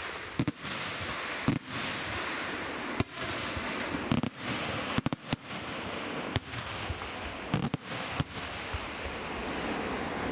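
Aerial firework shells bursting: about a dozen sharp bangs at irregular intervals, with a quick cluster about five seconds in, over a continuous hiss.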